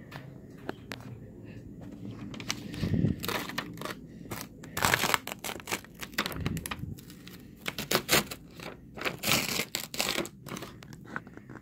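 Irregular crinkling, rustling and tearing noises with scattered sharp clicks, coming in uneven bursts: adhesive tape being torn and pulled loose by hand.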